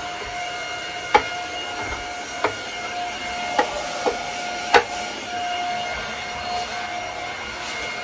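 Ultenic U12 Vesla cordless stick vacuum running in handheld mode with a brush attachment on a hard floor: a steady motor whine over a rush of air, broken by about five sharp ticks at uneven intervals, the loudest about five seconds in.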